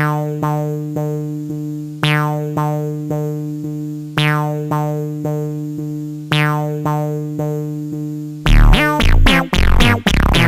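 Electronic background music: a repeating synthesizer keyboard pattern of plucked notes, joined about eight seconds in by a heavy bass beat and quick falling synth sweeps.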